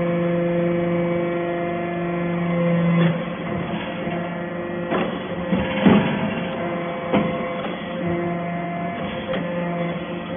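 Hydraulic metal chip baler working: a steady machine hum gives way about 3 seconds in to several sharp knocks and clanks, the loudest about 6 seconds in, and the hum returns about 8 seconds in.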